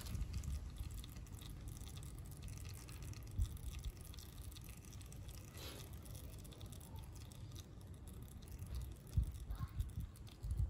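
Gear oil trickling in a thin stream from a scooter's final-drive gearcase drain hole into a plastic drain pan, under a faint low rumble with a few soft knocks, mostly near the end.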